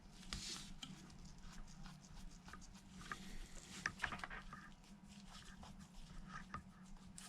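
Faint, scattered taps and light clicks of fingertips on the glass of an iPhone 11's newly fitted replacement screen, over a low steady hum, as its touch response is tested; the touch turns out to be faulty.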